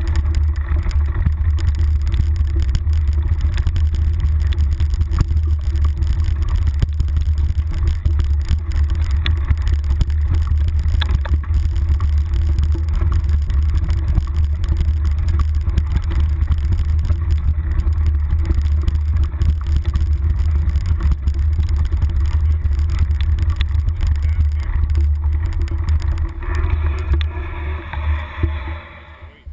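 Wind and trail rumble on a handlebar-mounted action camera as a mountain bike rides fast downhill on dirt singletrack: a steady deep rumble with scattered faint rattles. The rumble eases and fades near the end.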